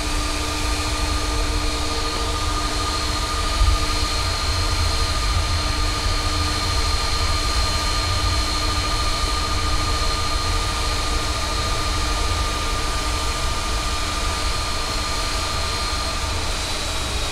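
Airbus A330 jet engines at taxi idle heard inside the flight deck: a steady low rumble with several steady whining tones over it, and one brief low bump about four seconds in.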